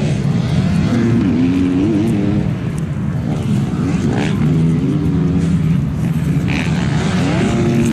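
Motocross dirt bike engines revving hard and dropping off over and over, their pitch gliding up and down as the bikes take the jumps, with more than one bike heard at once.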